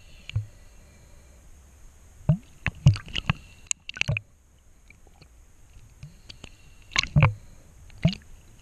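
Irregular knocks and clicks heard underwater, with dull thuds under some of them, from spearfishing gear and the speared fish bumping against the camera housing. They come in clusters about two to four seconds in and again about seven to eight seconds in.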